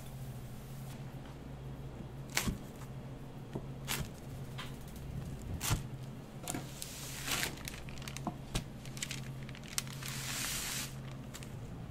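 A knife cutting through a crisp grilled quesadilla on a paper sheet, with several sharp knocks and crackles, then paper rustling and crinkling as it is folded around the quesadilla. A steady low hum of kitchen equipment runs underneath.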